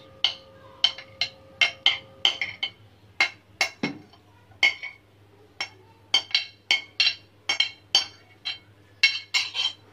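A metal spoon clinking and scraping against a cut-glass bowl as mango chunks are pushed off it into a blender jar: a run of sharp, uneven clinks, two or three a second.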